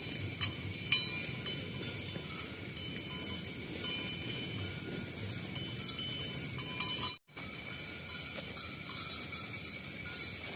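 Cowbells on grazing cattle clanking irregularly, each clank ringing briefly, with a sudden gap of silence about seven seconds in.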